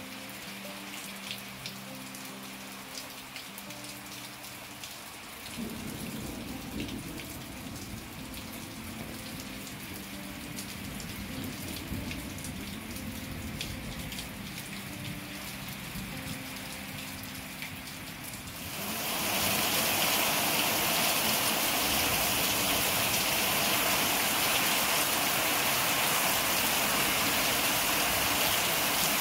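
Rain falling on a patio and plants, scattered drops ticking through a steady patter. About two-thirds of the way through it jumps suddenly to a much louder, steady downpour hiss.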